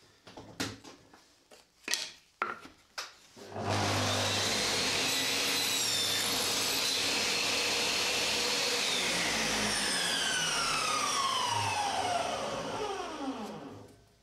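A few knocks of small wooden pieces being set on a table saw's crosscut sled, then the table saw switches on with a sudden start and runs while a small piece of wood is pushed through the blade. Over its last few seconds the motor and blade wind down, the whine falling steadily in pitch until it stops.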